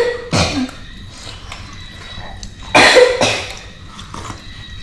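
A person coughing: a cough right at the start and another, loud one about three seconds in.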